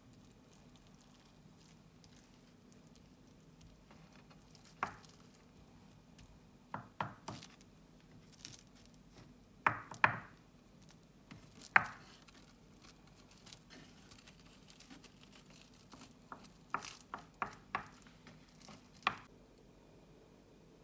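About fifteen short knocks and clicks at irregular intervals, some in quick clusters, like objects being set down and handled, over a faint steady low hum.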